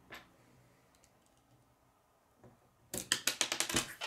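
Hard plastic K'nex pieces clicking and clattering as they are handled: a couple of single clicks, then a rapid run of clicks lasting about a second near the end.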